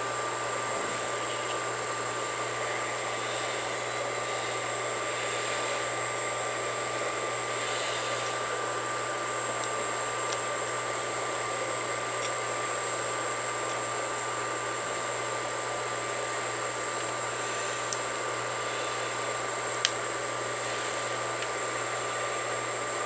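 Steady whirring hiss of a running fan with a few thin steady tones in it, unchanging, and two faint clicks near the end.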